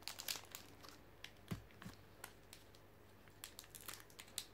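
Foil wrapper of a Pokémon booster pack handled in the fingers, giving faint scattered crinkles and small sharp clicks as its sealed top is picked at to tear it open.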